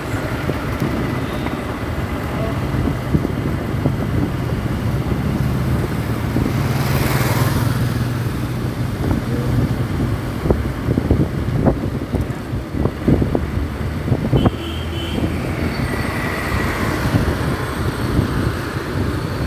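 Motorcycle engine running steadily under way through city traffic, with road and wind noise. Its low drone shifts lower about halfway through. A brief rush of noise comes about seven seconds in.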